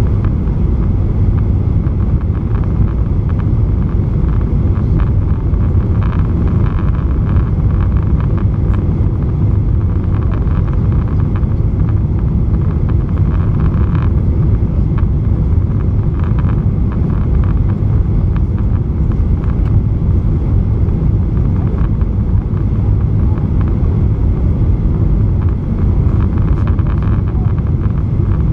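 Steady low cabin rumble of a Boeing 737-900ER on final approach: its CFM56-7B engines and the rush of air, heard from inside the cabin at a window seat over the wing.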